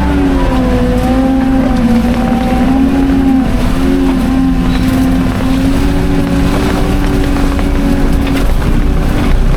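Skid steer engine running steadily under work, its pitch drifting slightly up and down.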